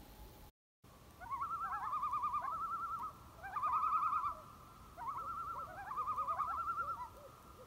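Bird calls: rapid, quavering trills in several bouts, each warbling up and down quickly, over a faint steady high tone.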